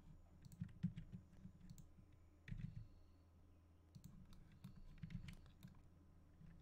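Faint computer keyboard keystrokes and mouse-button clicks, irregular and in small clusters, over a low steady hum.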